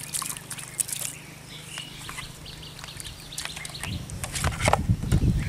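Wet mud and shallow water squelching and splashing under working hands, with scattered clicks and faint bird calls behind. A loud low rumble builds about four seconds in.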